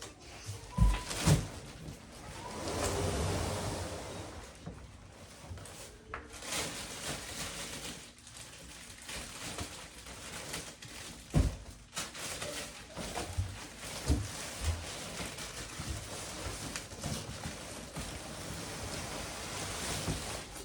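Cardboard shipping boxes being handled and opened: scattered knocks and thumps, with a stretch of rustling a couple of seconds in.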